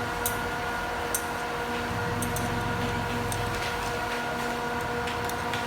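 Steady room hum of a running machine with a few faint, sharp light clicks, the wrench working a small bicycle bolt.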